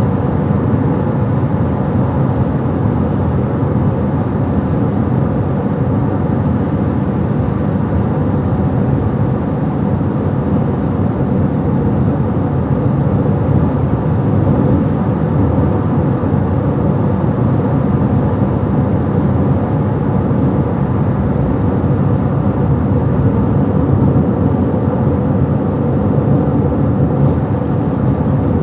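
Steady road noise of a car driving: tyre rumble and engine noise holding an even level throughout.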